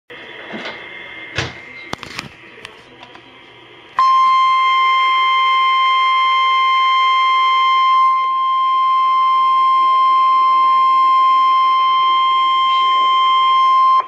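NOAA Weather Radio's 1050 Hz warning alarm tone: one loud, steady, unbroken beep that starts abruptly about four seconds in and holds for about ten seconds, signalling that a warning message (here a tornado warning) follows. Before it, a few sharp clicks over a faint hiss.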